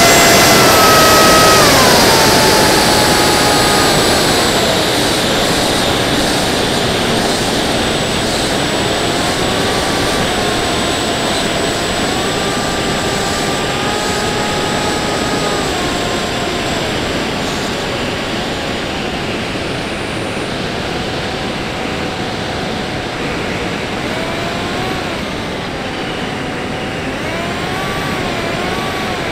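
Brushless motor and 5045 bullnose propeller of a Theory W FPV flying wing, heard from its onboard camera. A whine drops in pitch about two seconds in as the throttle comes back, then rises and falls several times with throttle changes, over a steady rush of air.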